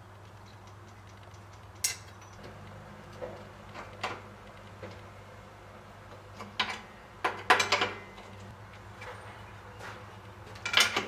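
Scattered metal clinks and knocks from hands working on a mountain bike's rear wheel, fitting the chain tensioners and straightening the wheel, with a cluster of louder knocks past the middle and a sharp one near the end, over a faint steady hum.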